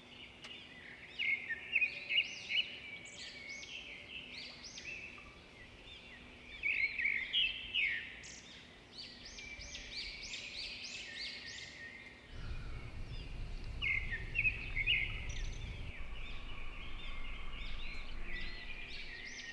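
Many small birds chirping and singing in quick, overlapping phrases, with a low rumble for a few seconds about two-thirds of the way through.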